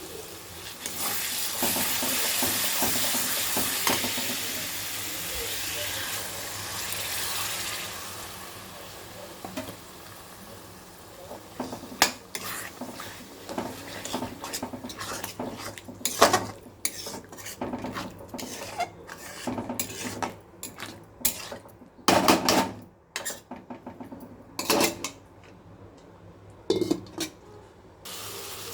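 Food sizzling in a hot pan for the first several seconds, the hiss dying down, then a metal spoon clinking, knocking and scraping against the pot at an uneven pace as the food is stirred.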